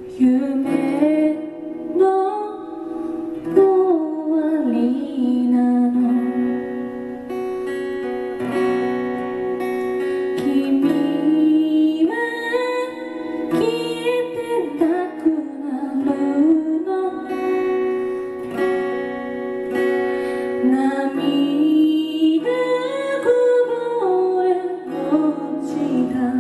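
A woman singing while strumming an acoustic guitar.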